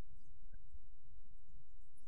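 Steady low rumble and rubbing of a camera strapped to a walking Siberian husky, picking up her body's movement, with a few faint high chirps.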